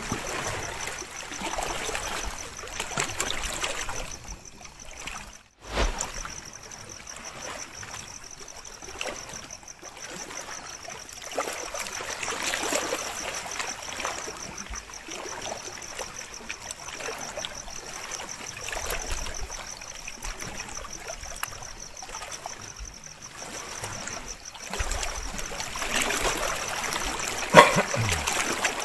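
Lake water lapping and sloshing at the shore in small waves, over a thin, steady, pulsing high trill. A brief louder noise comes near the end.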